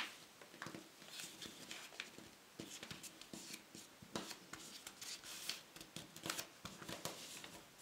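Faint rustling and soft scattered clicks of a sheet of paper being folded over along its edge and creased down by fingertips.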